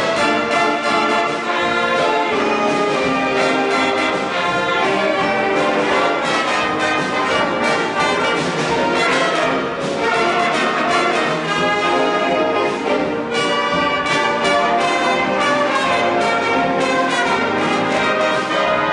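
A big band playing a piece live, with its saxophone, trumpet and trombone sections sounding together.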